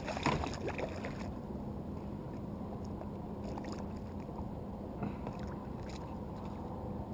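A smallmouth bass thrashing and splashing at the surface right beside a kayak for about the first second. After that there is a low steady wash of water and a few faint knocks.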